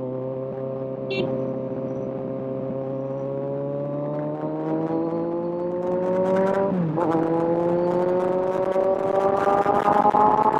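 Kawasaki Z1000's inline-four engine pulling with a slowly rising pitch under acceleration. It drops sharply about seven seconds in on an upshift, then climbs again.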